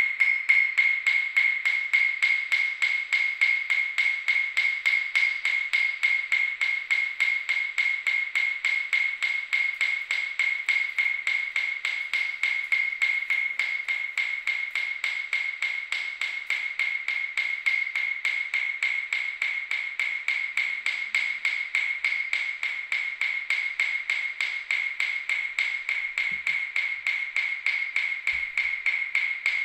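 Rapid, perfectly even ticking, several short high-pitched clicks a second, like a metronome or clock, holding steady throughout.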